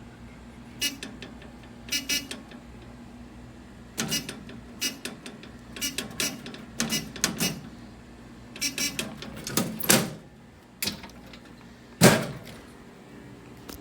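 A string of irregular clicks, clunks and short metallic clinks from hardware being handled, about fifteen in all, the loudest in the second half.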